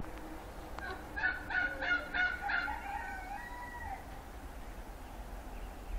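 A rooster crowing: a run of short, evenly spaced notes starting about a second in, then one long drawn-out note that ends about four seconds in.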